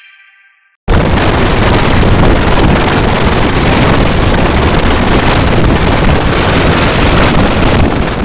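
Harsh, very loud static noise cuts in suddenly about a second in, after the last faint note of a jingle dies to silence. It holds steady and starts to fade near the end.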